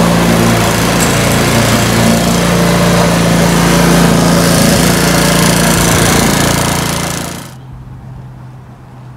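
Petrol lawn mower engine running steadily and loudly close by. It stops suddenly about seven and a half seconds in, leaving only a faint low hum.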